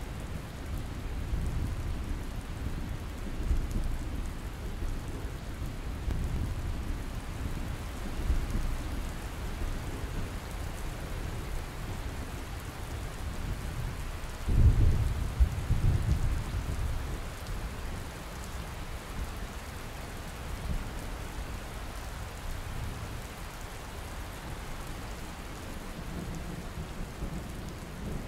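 Steady rain falling, with low rolling thunder throughout. About halfway through a louder thunderclap breaks in suddenly and rumbles away over a few seconds.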